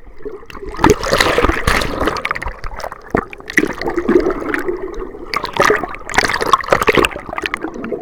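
Seawater churning and gurgling around a camera held underwater in the surf, muffled, in irregular surges and crackles.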